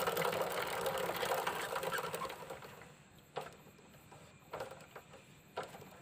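Rear wheel of a Hero Splendor spun by hand, its freshly tightened drive chain running over the sprockets with a rapid whirring clatter that fades as the wheel slows. A few faint knocks follow.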